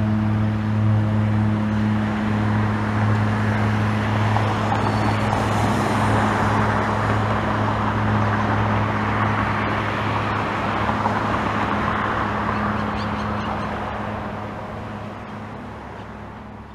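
ELA 10 Eclipse gyrocopter's Rotax 914 turbocharged four-cylinder engine and pusher propeller running with a steady drone at takeoff power as it lifts off and climbs away. The sound fades over the last few seconds.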